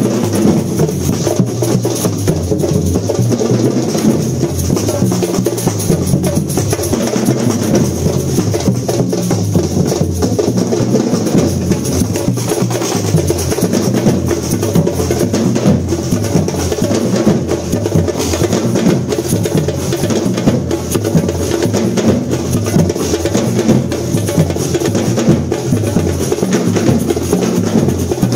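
A drum ensemble playing a steady, driving rhythm without a break, the low drums loudest.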